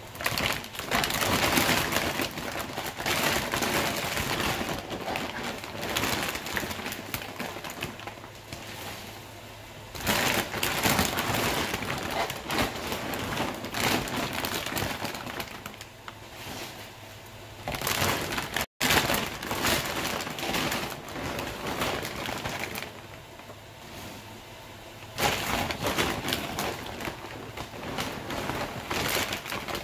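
Crinkly rustling and crunching of a plastic bag and dry dog food being handled and scooped, in four stretches of a few seconds each.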